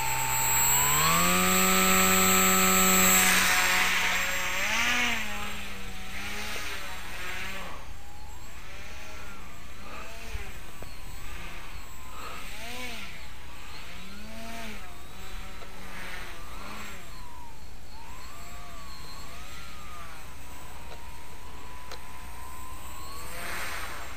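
Motor and propeller of a ball-shaped RC aircraft spinning up with a rising whine in the first couple of seconds, loudest at the start. In flight the pitch then rises and falls over and over, and near the end it holds steady.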